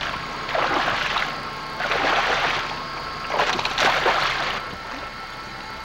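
Water splashing as a hooked fish thrashes at the surface beside the boat: three bursts of about a second each, the last the loudest.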